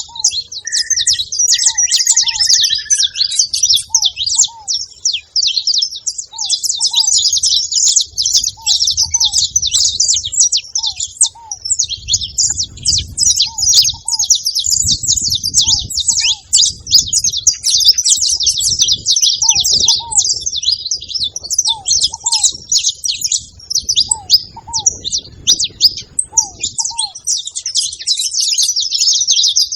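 Many saffron finches chirping at once in a dense, continuous high twittering. Short, low paired notes repeat every second or two underneath.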